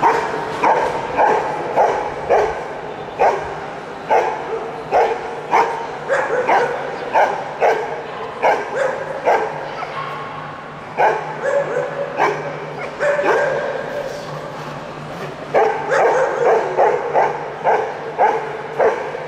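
An Ibizan Hound (Podenco Ibicenco) barking and yipping over and over in excited play, about two short, high barks a second, with a couple of brief pauses.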